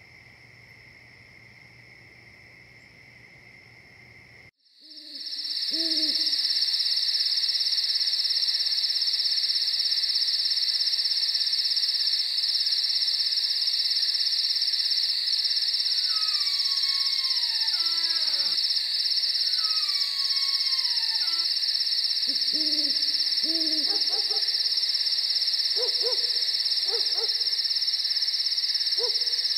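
Night-time ambience: a faint insect trill, then from about four and a half seconds in a much louder, steady insect chorus. Over it an owl hoots several times, with a few falling whistle-like calls in the middle.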